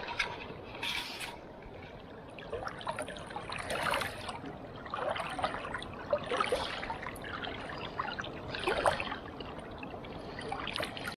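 Shallow river current gurgling and trickling close by, with small irregular splashes coming and going.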